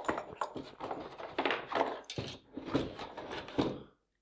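Handling noise of a plastic FN P90 airsoft gun and its moulded pulp cardboard packaging: a run of knocks, scrapes and rustles as the gun is moved and set down in the insert, stopping shortly before the end.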